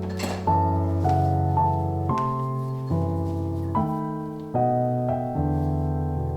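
Soft background piano music: slow, sustained notes and chords changing every second or so. A short, noisy sound comes just after the start.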